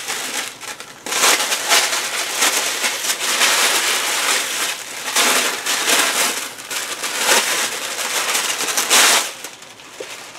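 Red tissue paper being torn open and crumpled by hand in a continuous crackling rustle. It dies down near the end.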